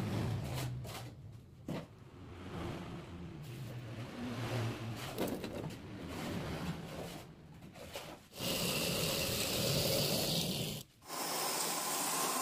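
Steel reinforcing rods and metal form pieces being handled, with scattered light clicks, then two stretches of steady scraping as a form piece is slid along metal bars. Each stretch stops suddenly.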